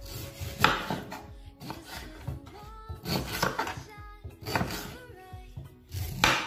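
Kitchen knife slicing fresh ginger root on a wooden cutting board: about five cutting strokes at uneven intervals, each a short knock of the blade on the board.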